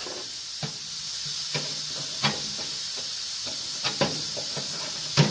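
Hand-held plasma cutter cutting through a car's sheet-steel floor pan: a steady hiss from the torch, with scattered sharp crackles and a low hum that comes and goes.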